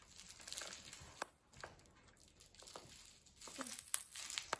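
A cat biting and clawing a stuffed fish toy with a rough woven cover, giving scratchy rustling and crinkling. There are scattered sharp ticks, the sharpest near the end.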